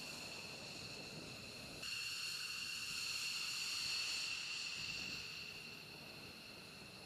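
F-15E Strike Eagle's jet engines whining at taxi power: a steady high-pitched whine of several tones over a rushing hiss. It steps up suddenly about two seconds in and fades lower in the last couple of seconds.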